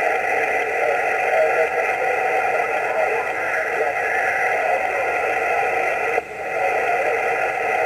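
Yaesu HF transceiver's speaker giving out steady band noise (static hiss) on the 20-metre band with no station talking. About six seconds in the noise suddenly dips and then comes back up.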